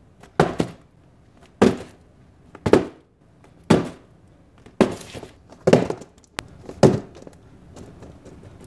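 Dull thuds of a taped cardboard parcel handled and knocked down on a cutting mat: about eight hits, roughly one a second, the first two close together.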